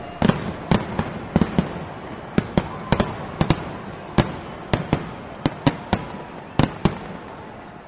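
Fireworks sound effect: a steady crackle with sharp bangs going off every half second or so, slowly fading.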